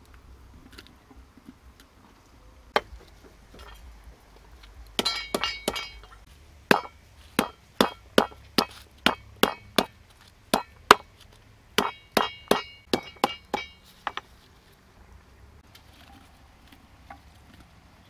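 Lemongrass stalks being struck on a wooden chopping board: a run of sharp knocks, about two a second, some with a short ring, starting about five seconds in and stopping a few seconds before the end.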